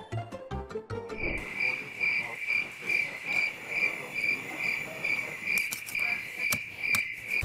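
Cricket chirping sound effect: a steady high chirp pulsing evenly about two to three times a second, the comedy cue for an awkward silence when no one takes up the offer to ask questions. It begins about a second in, as a short musical sting ends.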